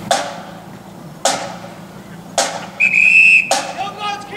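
Marching band's bass drum struck at a slow even pace, about once a second, each beat ringing on. About three seconds in, a single steady whistle blast sounds for under a second, followed by short gliding high calls.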